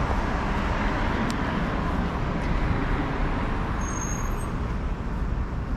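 Steady road traffic noise from cars passing on a city street, with a brief high squeak about four seconds in.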